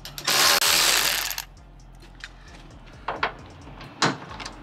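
A power tool driving a socket runs in one loud burst of about a second, backing out a painted-over bolt, followed later by a few sharp metallic clicks.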